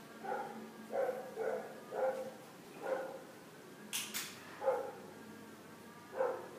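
A dog barking repeatedly in short barks at uneven intervals. There are two sharp clicks about four seconds in.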